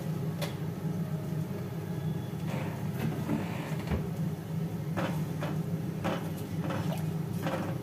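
Steel spoon stirring thin millet porridge in a stainless steel pot, scraping and knocking against the pot several times, mostly in the second half, over a steady low hum.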